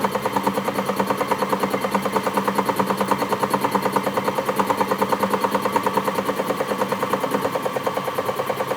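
A machine running steadily with a fast, even pulsing of about ten beats a second over a steady hum.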